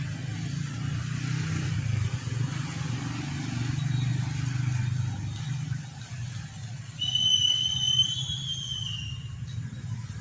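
Steady rumble of road traffic going by. Near the end a high, clear whistling tone sounds once for about two seconds, rising slightly.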